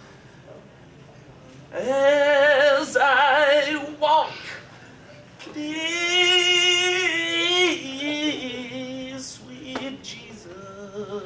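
A solo voice singing with a wide vibrato, in two loud phrases; the second holds a long note that steps down to a lower one.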